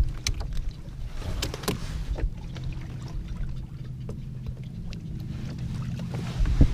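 Low, steady drone of a boat motor, with a few light clicks and knocks in the first couple of seconds.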